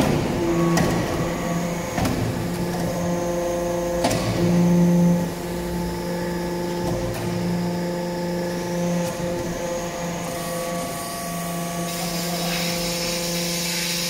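Hydraulic metal-chip briquetting press running: a steady low hum from its hydraulic pump and motor, with a pitched whine that swells and fades as the press cycles, and a few sharp clunks in the first few seconds.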